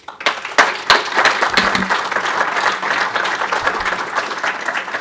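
Audience applauding at the end of a talk, a dense, steady clapping that breaks out all at once.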